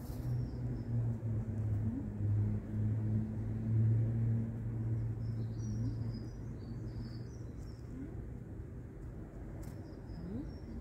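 A low, steady engine hum that eases off about six seconds in, with small birds chirping in short bursts.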